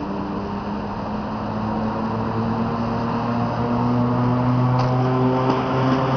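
PKP EP09 electric locomotive drawing into the platform with a train of passenger coaches: a steady electric hum from its motors and blowers, growing louder as it comes alongside, over the rumble of the train. A few short wheel clicks come in near the end.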